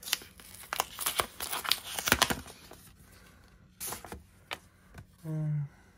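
A paper envelope being opened and a card pulled out, with quick bursts of paper rustling and crinkling through the first couple of seconds and a few lone rustles after. A short hummed voice sound comes near the end.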